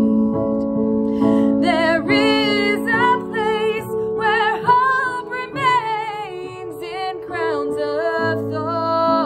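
A woman singing a slow worship song over held chords of keyboard accompaniment. The accompaniment plays alone at first, and her voice comes in about a second and a half in, with vibrato on the held notes.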